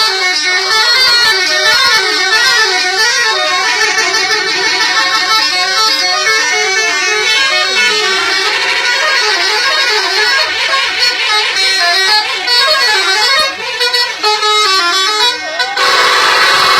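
Bus telolet horn, a multi-trumpet musical horn, playing a quick up-and-down melody over and over. Near the end it changes to a louder, steadier horn blast.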